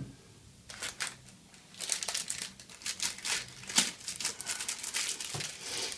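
Plastic filter sleeves crinkling and rustling as close-up lens filters are handled in and out of their pouch, after a couple of light clicks about a second in.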